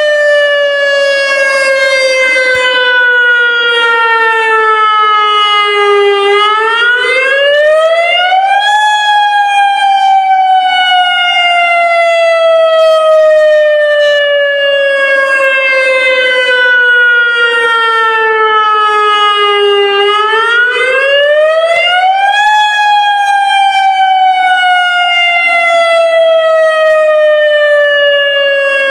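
Federal Signal Modulator lahar-warning siren sounding its monthly test wail: one loud pitched tone that falls slowly for about twelve seconds, then climbs back up over a couple of seconds, twice.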